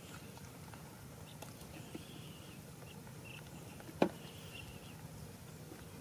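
A single sharp knock about four seconds in as a fish is dropped into a plastic bucket, over a faint steady outdoor background with a few faint high chirps.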